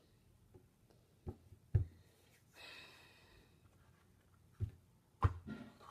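A few soft, dull thuds of hands and a lump of Play-Doh on a tabletop, with a breathy sigh about three seconds in.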